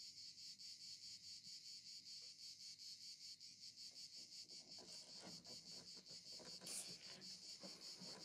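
Crickets chirping faintly: a steady, high, evenly pulsing trill. Faint low rumbling and knocks join about halfway through.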